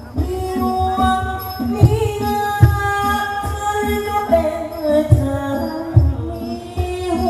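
Thai likay lae singing: the male lead draws out long, melismatic vocal lines, with low drum strokes every second or so from the accompanying ensemble.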